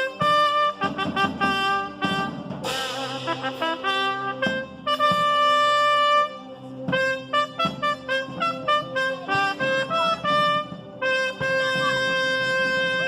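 Trumpets playing a clarinada, a ceremonial brass fanfare, in runs of short, crisp repeated notes broken by long held notes.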